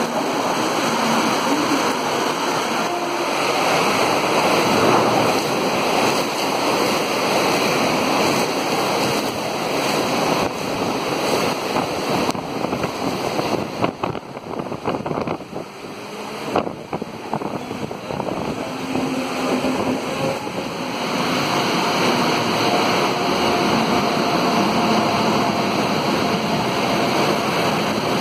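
Heavy rain with electric trains rushing through a station at speed: a steady, loud rush of rain and passing train noise. It dips quieter for a few seconds about halfway through.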